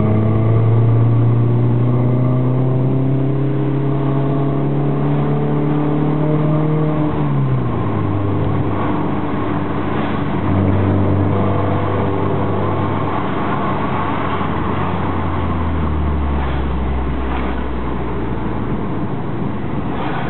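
Alfa Romeo 156 Twin Spark's four-cylinder engine heard through a T.Welding aftermarket muffler. The engine note rises slowly for about seven seconds, then its pitch drops sharply. It carries on at a lower, changing pitch that sinks further near the end.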